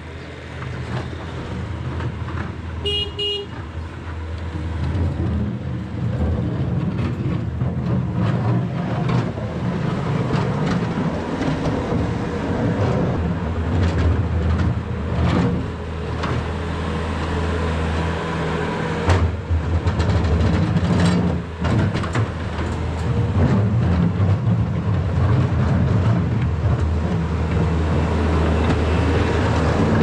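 Skid steer loader's diesel engine running as it works in the yard, with knocks and clanks throughout. A short high-pitched beep sounds about three seconds in.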